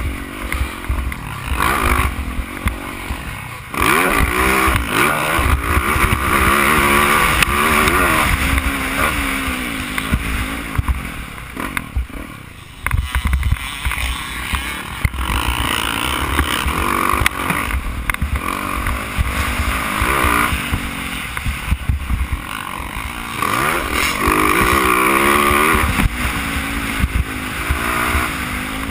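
Yamaha YZ450F single-cylinder four-stroke motocross bike engine at race pace, its pitch climbing and dropping again and again as the throttle is worked and gears change, with wind rumble on the microphone. The engine falls off briefly about halfway through, then pulls hard again.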